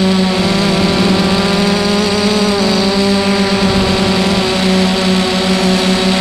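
Electric motors and propellers of an FPV multirotor heard from its onboard camera in flight: a steady buzzing whine whose pitch wavers slightly as it banks.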